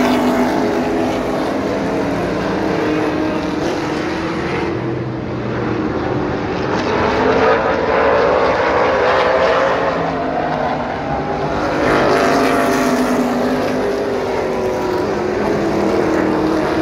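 A field of late-model stock car engines racing around a paved short-track oval. Several engines overlap, their pitch rising and falling as the cars accelerate off the turns and sweep past.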